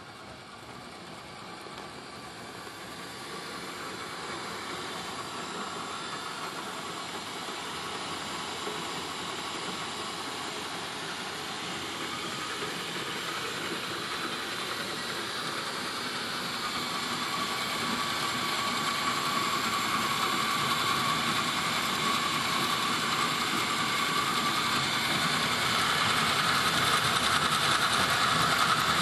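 Engine-driven kite winch running with its spool of kite line, a steady noisy mechanical sound that grows gradually louder.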